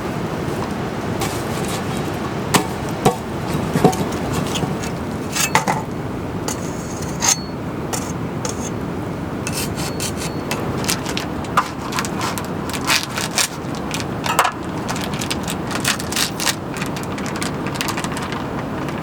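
Steady rain noise with irregular knocks, scrapes and clicks of objects being handled, coming in clusters throughout.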